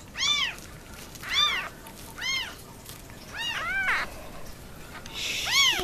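A newborn kitten mewing repeatedly while it is bottle-fed: about six short, high cries, each rising and then falling in pitch, two of them close together in the middle. A brief rustle comes near the end.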